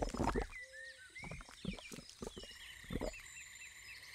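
Cartoon sound effects of a young wild boar wallowing in a mud pool: a string of short, wet sounds, with small birds chirping in the background.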